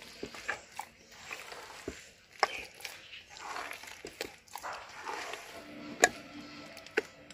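A bare hand squishing and kneading a soft, wet palm-and-banana fritter batter in a metal bowl, with a few sharp clicks of the hand against the bowl, the loudest about two and a half seconds in.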